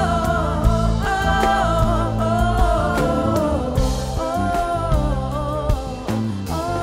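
A song performed live by a band: a woman's lead vocal with backing singers in harmony, over drums, cymbals and bass notes.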